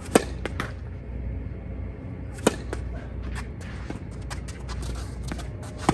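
Tennis rally: three sharp pops of racket strings hitting the ball, a few seconds apart, with fainter clicks in between.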